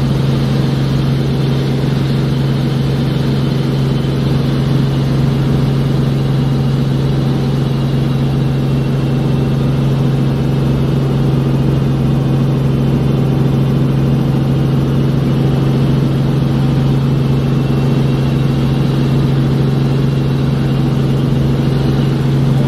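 Helicopter's engine and rotors running steadily in flight, heard from inside the cabin as a constant low hum that does not change in pitch or loudness.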